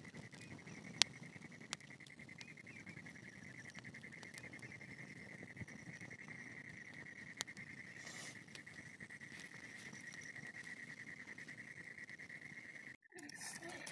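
A steady, high-pitched insect trill with a fast even pulse, over a low hiss from the open fire, with a few sharp pops from the burning straw and leaves. The sound cuts out briefly near the end.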